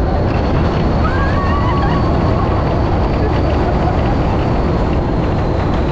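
Test Track ride vehicle running fast on the banked outdoor track: a loud, steady rush of wind and rolling noise, with a thin steady high whine throughout.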